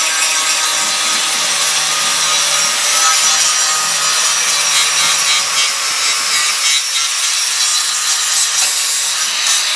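A grinder running steadily against Bondo body filler on a rotted rocker panel, a loud continuous rasp with a faint steady whine. It is grinding through thick filler to reach solid metal underneath.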